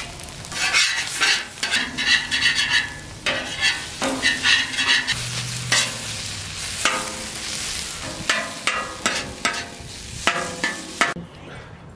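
A slotted metal spatula scraping and stirring sea urchin roe on a hot steel flat-top griddle, the food sizzling under repeated scraping strokes that ring with a metallic edge. The sizzle cuts off suddenly near the end.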